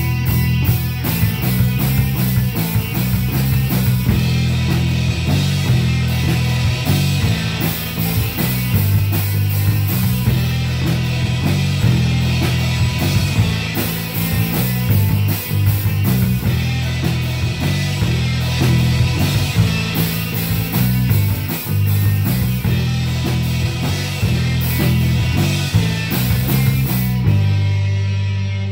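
Live rock band playing an instrumental passage on electric guitars and a drum kit, with steady cymbal strokes over shifting low guitar notes. Near the end the drums stop and a low guitar note rings on alone.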